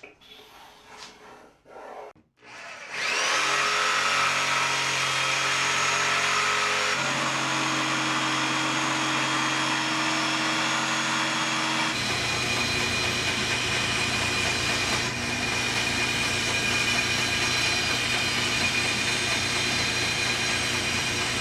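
Power saws cutting 3/4-inch MDF for a 16-inch wheel: a DeWalt jigsaw, then a band saw trimming along the marked circle. The steady saw sound starts about three seconds in and changes character about seven and again about twelve seconds in.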